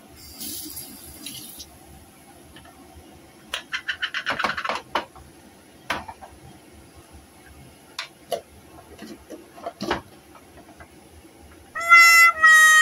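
Handling sounds at a glass jar of sliced ginger: a brief hiss, then a quick run of clicks and clinks and a few single sharp taps. A short music jingle with bright stepped tones starts near the end.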